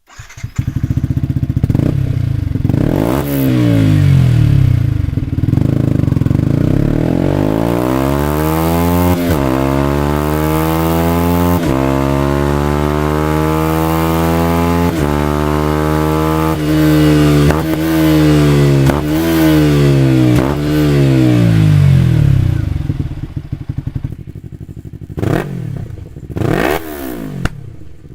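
Yamaha R-series sport bike engine and exhaust accelerating through the gears. The pitch climbs and drops sharply at each upshift, then falls away as the bike slows, and a few short rev blips come near the end.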